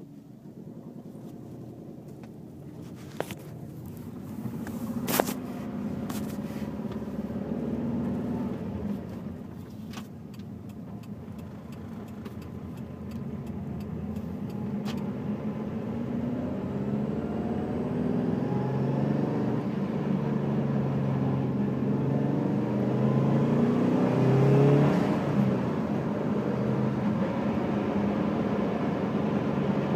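Car engine running with a grinding noise, pitch rising in steps as it gets louder in the second half. Several sharp clicks in the first half.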